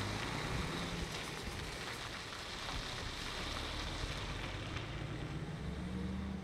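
Diesel engine of a tipper truck with a loader crane pulling away, a low rumble that swells again near the end, over a steady rushing noise of wind and road.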